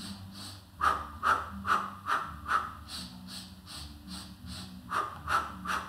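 A woman breathing in short, rhythmic pulses, about two a second, for the Pilates hundred: five sharp outward puffs, then a fainter set of in-breaths, then the puffs start again near the end.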